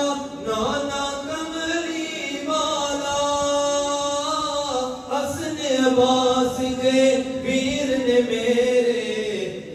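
A voice chanting an Islamic devotional kalam unaccompanied, holding long notes that glide slowly in pitch, with a short break about five seconds in.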